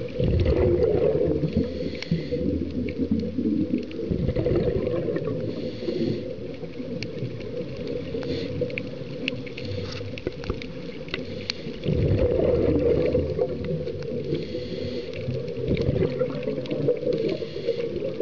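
Scuba diver breathing through a regulator underwater, heard through the camera housing: several loud bubbling rushes of exhaled air, with hissing inhalations between them. Scattered faint clicks run through the background.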